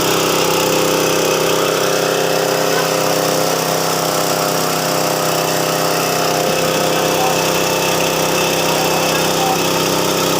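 Rice and corn milling machine running steadily, a constant even mechanical drone.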